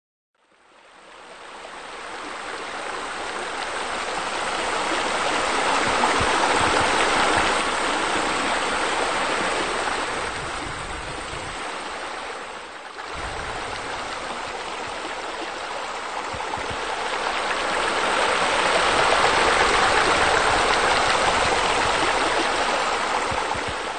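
Rushing water, a steady hiss that fades in, swells, dips briefly about halfway, swells again and falls away near the end.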